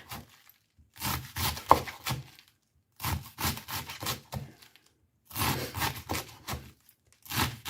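Knife slicing through a raw cabbage head, cutting it fine: four runs of quick strokes with short pauses between them.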